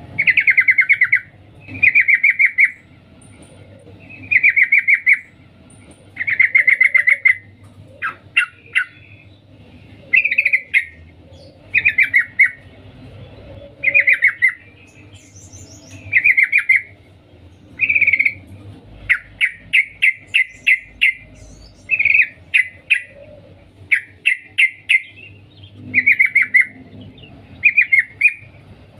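Female yellow-vented bulbul (trucukan) giving its "cuk cuk" call to a male: loud, rapid chattering bursts about a second long, repeated roughly every two seconds, with a quicker string of separate notes about two-thirds of the way through.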